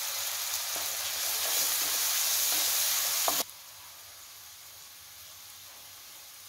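Chopped onions sizzling in hot oil in a kadai, with a few light scrapes of a spoon stirring them. A little past halfway the sizzle drops suddenly to a much fainter hiss.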